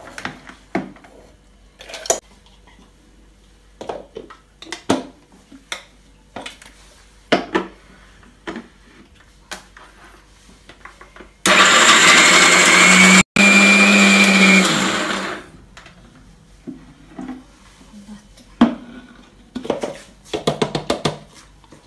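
Scattered knocks and clatter, then about halfway through a kitchen mixer grinder runs loudly for about four seconds, grinding fresh green corn kernels into a paste; it cuts out for an instant, restarts, then spins down. More knocks and clatter follow near the end.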